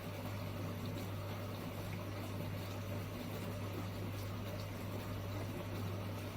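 Tank-type countertop dishwasher running a wash: a steady pump-motor hum under the even rush of water churning inside.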